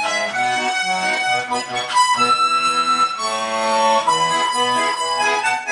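Accordion music: sustained chords and a melody over a moving bass line, with one chord held for about a second near the middle.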